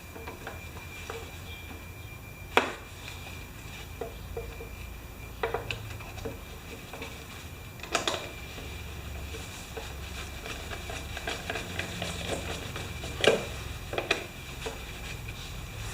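Scattered clinks and knocks of metal parts and tools being handled, a few sharp ones standing out over a steady low hum.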